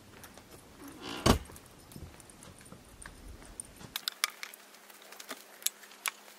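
Light metallic jangling and scattered clicks, with one sharp knock about a second in.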